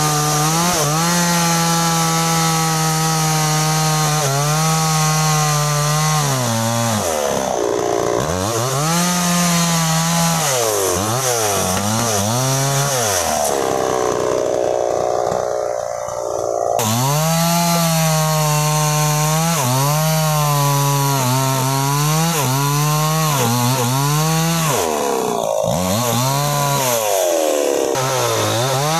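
New West 628 two-stroke chainsaw cutting through a sengon log at high revs. Its pitch sags again and again as the chain bites into the wood and climbs back as it frees. About halfway the note falls away and goes rough for a moment before the saw runs at full speed again.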